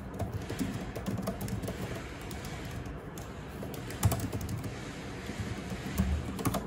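Typing on an Apple MacBook Pro M1's scissor-switch keyboard: a run of quick, irregular soft key clicks, with one louder tap about four seconds in.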